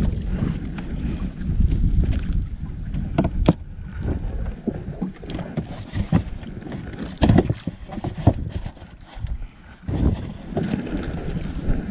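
Wind rumbling on the microphone, with scattered sharp knocks and clicks from handling on a small wooden outrigger boat.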